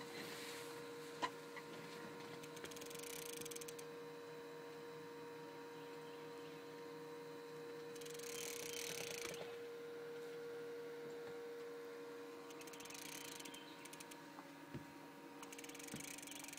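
Faint steady hum of a trolling boat's motor, with several short bursts of hiss and a few sharp clicks on top.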